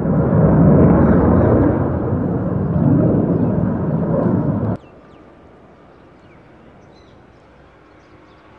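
Loud engine noise of an F-16 fighter jet for the first five seconds or so, then it cuts off suddenly. After that only a faint background with a few high chirps remains.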